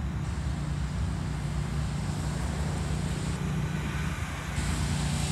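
Lawn mower engine running steadily, a low drone that grows a little louder near the end.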